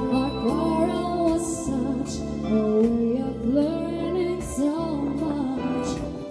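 A slow soul ballad playing, with a sustained bass line, light cymbal ticks and a gliding melody line.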